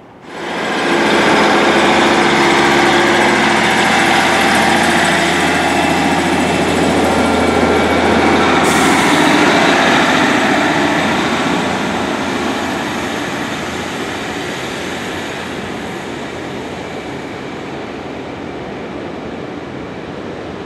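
A train passing close by: loud engine drone and wheel-on-rail noise that starts suddenly just after the start. From about halfway it gives way to a Class 150 Sprinter diesel unit pulling away, its sound fading steadily.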